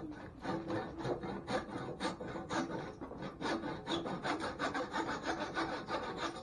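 Handsaw cutting through wood, quick even strokes about four a second, trimming off the excess of the freshly glued wedge and handle end that stick out of a sledgehammer head.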